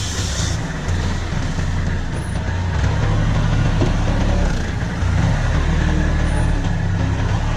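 Heavy machine engine running steadily, its low drone dipping and coming back every couple of seconds as the load changes. There is a short hiss right at the start.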